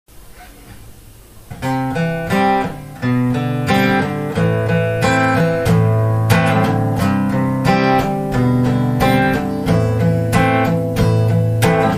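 Acoustic guitar strumming chords in a steady rhythm as a song intro, starting about one and a half seconds in.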